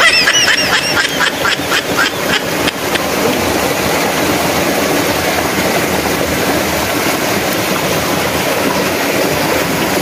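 Steady rush of stream water. For the first three seconds a quick run of short, repeated pitched calls, about four a second, sits over it.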